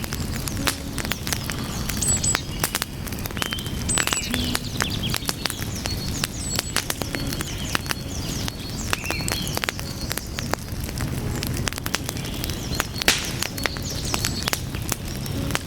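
Wood fire crackling, with many sharp pops and snaps over a steady low rumble of burning flames. Short high chirps are scattered throughout.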